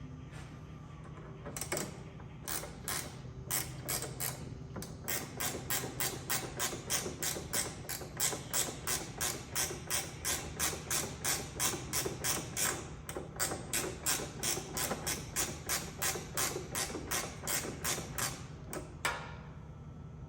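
Long run of sharp metallic clicks or taps, evenly spaced at about three a second, from a hand tool working a bolt into a Honda Civic's rear suspension arm. The clicking starts about two seconds in and stops shortly before the end.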